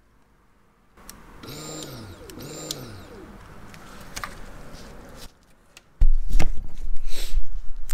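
Electric fuel pump of a Honda VTX1800, run dry on the bench: two short whirs about a second apart, each spinning up and winding down, with a fainter hum going on to about five seconds in. About six seconds in, loud low rumbling and bumping takes over.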